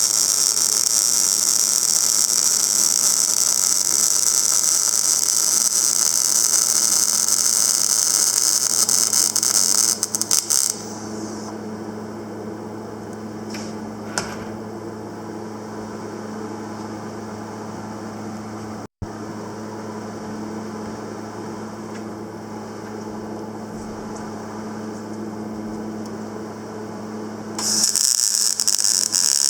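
Panasonic YD-350GB2 semi-automatic welder under test: a loud hissing, crackling welding arc over the machine's steady transformer hum. About ten seconds in, the arc stops and only the hum is left. The arc starts again shortly before the end.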